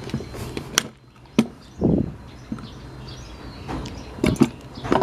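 A series of sharp knocks and clicks, several in quick succession near the end, over a low steady hum that stops about a second in.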